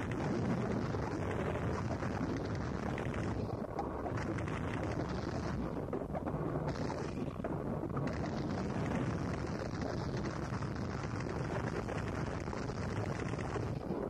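Gorenoise recording: a dense, unbroken wall of harsh distorted noise, heaviest in the low and middle range, with no clear beat or melody. Its top end briefly drops away a few times.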